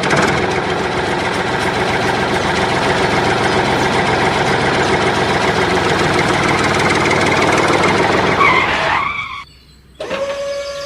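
A loud, steady mechanical running noise, like a motor, for about nine seconds, then it cuts off suddenly. Near the end a steady siren-like tone begins.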